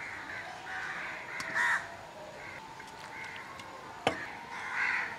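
Crows cawing repeatedly in the background, harsh calls in quick runs. A single sharp clink of the serving ladle on the steel bowl comes about four seconds in.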